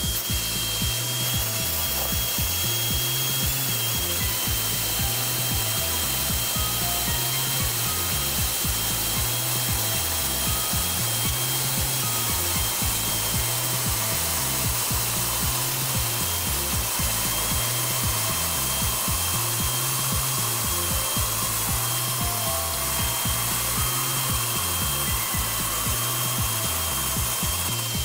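Bench brake lathe spinning a rear brake rotor while the cutting bit skims the disc face: a steady scraping cut with a thin, constant high whine, a re-cut pass to true up a face worn into record-like grooves. Background music with a bass line repeating every couple of seconds plays underneath.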